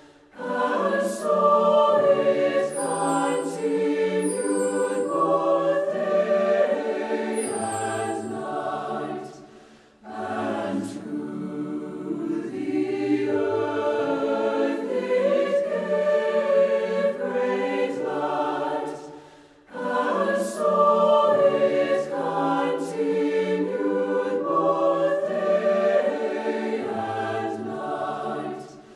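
Choir singing, in long phrases with short breaks about ten and twenty seconds in.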